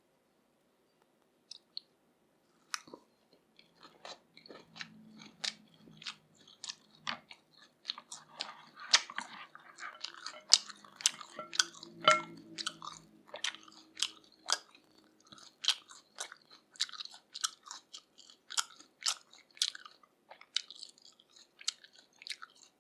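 Close-miked chewing of grilled pork neck with a sticky spicy sauce: wet, smacking mouth clicks at roughly two a second, starting about three seconds in after a near-silent opening.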